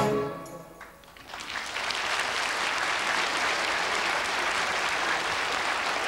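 The last chord of a song with choir and orchestra dies away in the first moment, and after a short lull a large audience starts applauding, steady clapping that holds to the end.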